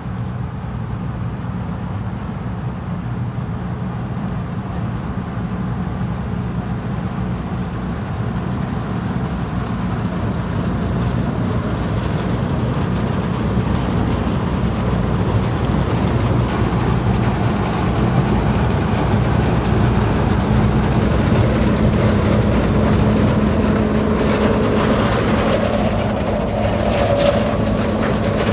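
Combine harvester running under load as it harvests corn, a steady engine drone that grows gradually louder.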